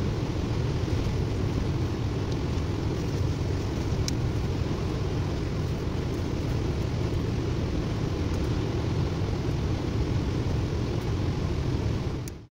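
Steady low rumbling noise with a faint click about four seconds in; it cuts off abruptly near the end.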